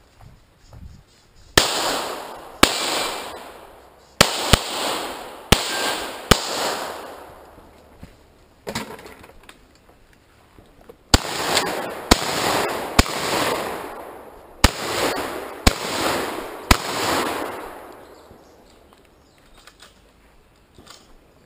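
About a dozen gunshots from a long gun, roughly one a second, in two strings with a pause of a few seconds between them. Each shot is followed by a long rolling echo off the surrounding woods.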